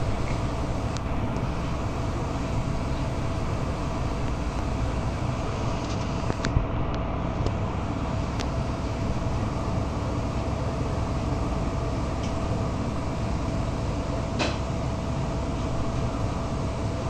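Inside a moving articulated city bus: steady engine and road noise with a constant whine, and a few short clicks, the sharpest about six and a half seconds in.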